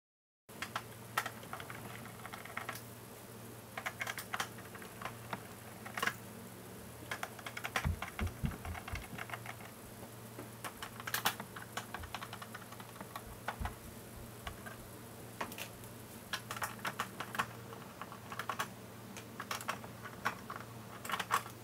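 Irregular small clicks and taps of a precision screwdriver and screws being worked out of a robot vacuum's plastic top cover and set down on the desk, with a few low knocks about eight seconds in, over a steady low hum.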